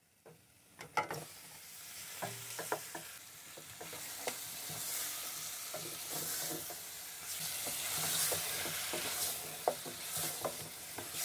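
Beef chunks sizzling as they fry in hot oil with golden-fried onions in a stainless steel pot. The sizzle starts faint and grows louder over the first few seconds, while a spoon stirring the meat knocks and scrapes against the pot now and then.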